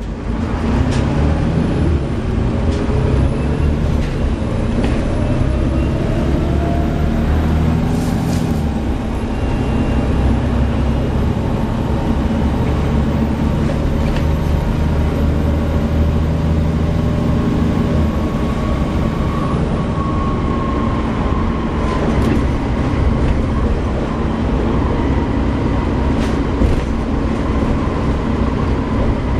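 Volvo B7TL double-decker bus under way, heard from the upper deck: the diesel engine runs steadily with its pitch slowly rising as the bus gathers speed. A slight whine from the engine's cooling fan runs underneath.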